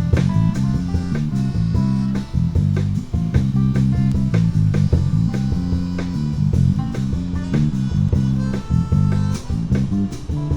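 Instrumental break in a band's song: guitar playing over a steady bass-guitar line, with no singing.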